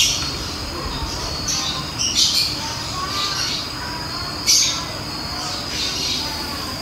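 Night-time outdoor ambience: a steady high-pitched drone with short harsh calls repeating about every two seconds.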